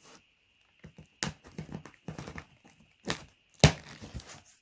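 A delivery parcel being handled and opened: a scatter of sharp knocks, taps and crinkles of packaging, the loudest knock about three and a half seconds in.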